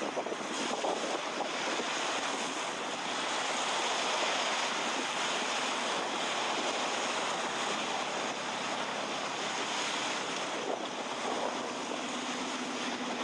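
Surf washing onto a sandy beach: a steady rush of waves, with some wind on the microphone.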